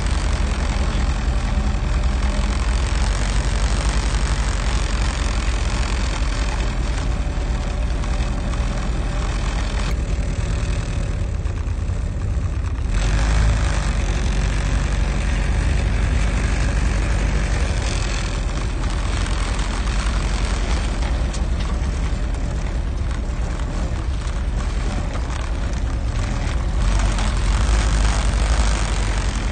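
Willys Jeep's four-cylinder side-valve Go Devil engine running steadily as the Jeep drives slowly along a rough dirt track, heard from on board, with a heavy low rumble.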